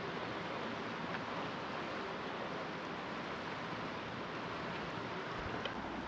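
Steady rushing of a fast-flowing river: an even, unbroken wash of water noise.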